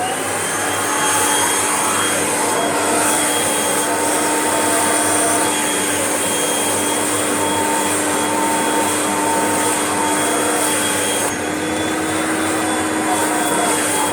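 Kirby upright vacuum cleaner switched on and running steadily with a motor whine, vacuuming a faux fur rug. Its whine rises briefly as the motor spins up at the start, and about eleven seconds in the hiss drops a little.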